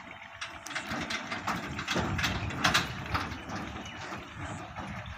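Folding steel solar-panel trolley frame being closed: its hinged mechanism clatters with irregular metal clicks, louder from about two seconds in.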